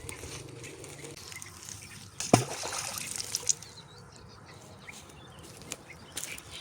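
Water trickling and sloshing, with a sudden loud knock about two seconds in followed by a brief louder splashing stretch.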